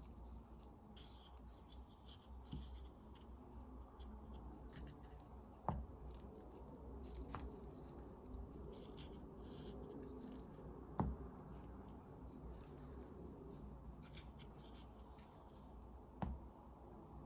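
Plastic acrylic paint containers being handled and set down: a few light clicks and taps, the sharpest about six and eleven seconds in, over a faint steady hiss.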